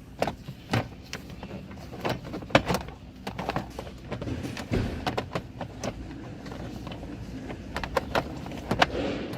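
Scattered clicks and knocks of plastic dash and steering-column trim being handled and fitted, over a steady low hum.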